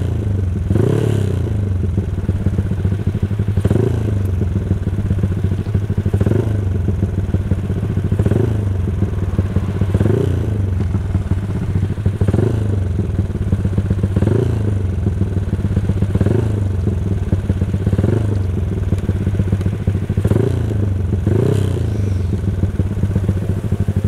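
Yamaha Crypton 135's single-cylinder four-stroke engine idling while the bike stands still. Its pitch briefly rises and falls about every two seconds.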